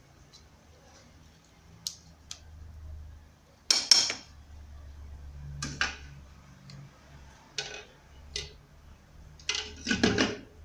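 Kitchen utensils and dishes knocking and clinking, about seven separate hits, with a loud double knock about four seconds in and a cluster of clinks near the end, as ground onion pulp is strained for its juice.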